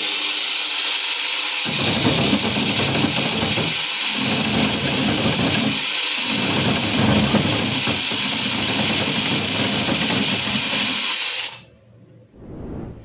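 125 mm angle grinder fitted with a chainsaw attachment, running at speed setting 3. Its chain starts cutting into a wooden board about two seconds in, breaks off briefly twice, then the grinder is switched off and stops suddenly near the end.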